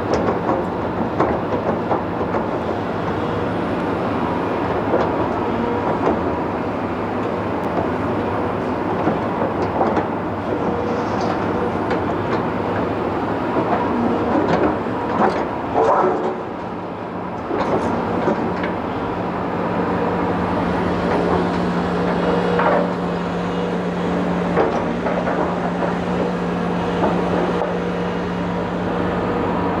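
Heavy diesel construction machinery running steadily, with a low engine hum and a few sharp metallic clanks, the loudest about halfway through.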